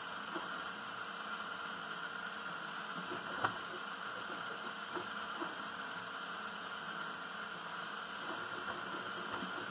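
FlashForge Finder 3D printer running mid-print: a steady whirring hiss and hum, with faint short blips and one sharp click about three and a half seconds in.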